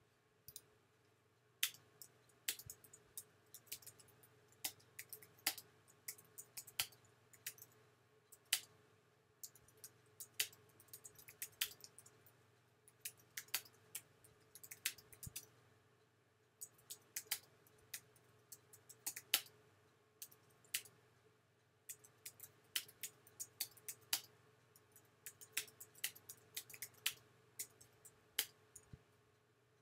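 Typing on a computer keyboard: quick irregular runs of key clicks with short pauses between words, over a faint steady hum.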